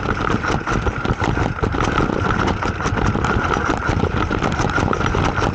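Mountain bike riding down concrete steps: a dense, rapid clatter of knocks and rattles as the tyres drop over each step and the bike shakes.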